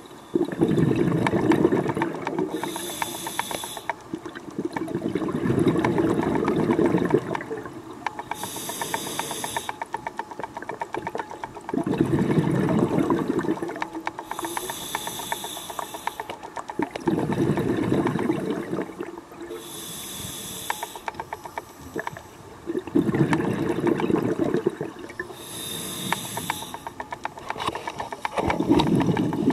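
Scuba diver breathing through a regulator underwater: a short hiss on each inhale, then a longer rush of exhaled bubbles, in a slow steady rhythm of about one breath every five to six seconds.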